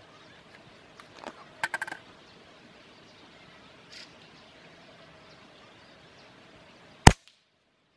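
A single sharp shot from a PCP air rifle about seven seconds in, the loudest sound by far, after a few seconds of quiet outdoor background with a few small clicks and rustles.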